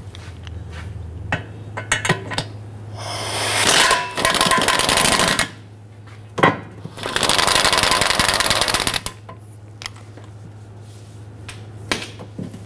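A power wrench runs in two rattling bursts of about two seconds each, spinning off the last 15 mm nut on the transmission mount bracket. A few sharp clicks of metal come between the bursts and near the end.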